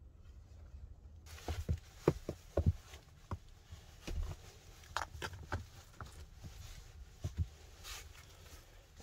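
Irregular sharp knocks and clacks of stone against stone as loose stones in a damaged dry-stone fireplace are handled, about a dozen, bunched between one and six seconds in.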